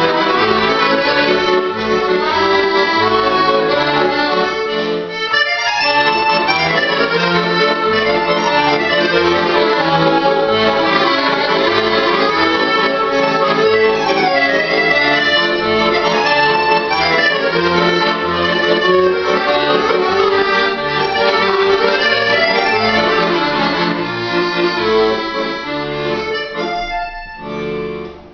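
Solo accordion playing a busy piece with quick runs of notes, pausing briefly about five seconds in; the music dies away near the end.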